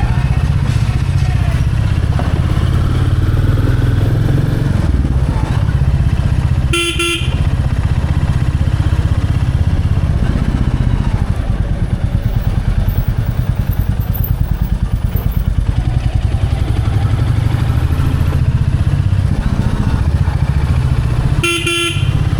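Royal Enfield Bullet 350's single-cylinder engine running under way with a steady low thump. A horn sounds briefly twice, about seven seconds in and again near the end.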